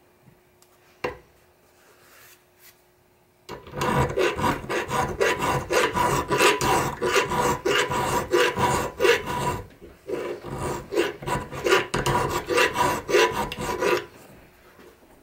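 Hand file rasping back and forth in the eye of a steel ball peen hammer head held in a vise, filing down the mushroomed top of the eye so the handle will fit. It starts after a few quiet seconds, runs in quick repeated strokes with a brief pause past the middle, and stops near the end.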